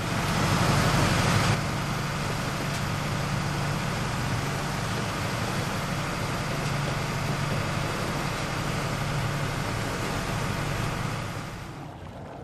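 A motor running steadily, a low hum under a broad hiss. It is a little louder for the first second and a half and falls off near the end.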